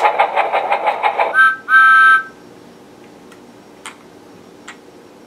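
Electronic steam-train sound effect from a Thomas the Tank Engine projector toy's small speaker: a quick burst of rapid chuffing, then a short and a longer whistle toot. A few faint clicks follow.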